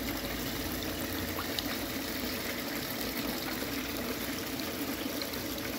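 Water from a pump-fed hose running and splashing steadily down a small recirculating sluice box over its rubber riffle mat, washing a scoop of black sand through.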